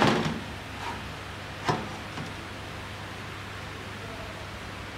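Metal clutch drum and clutch-pack parts of a ZF 8HP automatic transmission knocking and clinking as they are handled on a workbench: a clunk at the start, a faint tick, and a sharp click a little under two seconds in, over a steady low hum.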